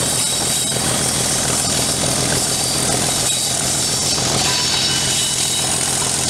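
Class 37 diesel-electric locomotive, its English Electric V12 diesel engine working steadily under power as it hauls the train along, mixed with a rushing wind on the microphone.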